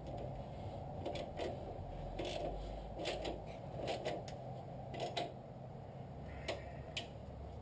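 Ratchet clicking in short, irregular bursts as the nut on a lower control arm cam bolt is snugged down by hand, not yet torqued.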